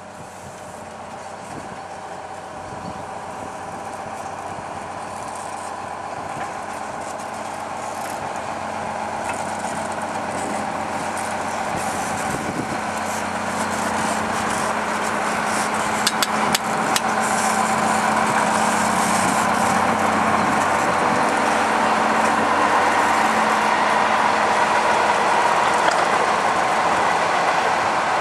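Diesel shunting locomotive M231's engine running as it moves slowly toward and alongside the listener, growing steadily louder as it draws near. A few sharp clicks come about two-thirds of the way through.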